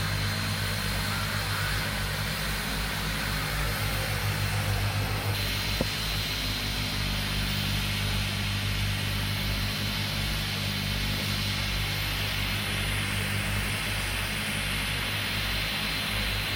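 Twin turboprop engines of a de Havilland Canada DHC-6 Twin Otter jump plane idling steadily on the ground: a low drone with a thin high whine over it.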